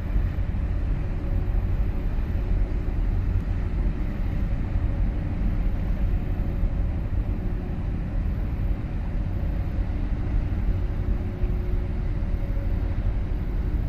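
Steady low engine rumble with a faint constant hum over it, unbroken throughout.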